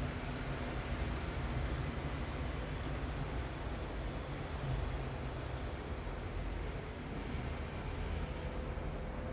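A small bird repeating a short, high chirp that falls in pitch, about five times at one- to two-second intervals, over a steady low background rumble.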